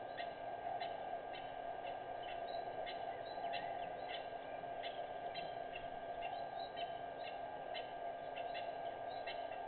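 A chorus of short, high chirping calls, several a second, some gliding slightly in pitch, over a steady low drone.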